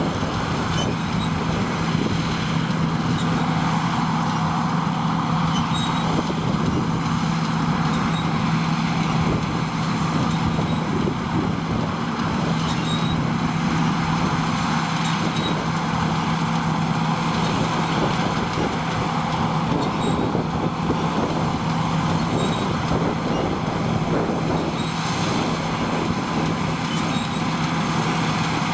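Heavy harvest machinery's diesel engine running steadily under load, a constant-pitched drone with a noisy mechanical rush over it.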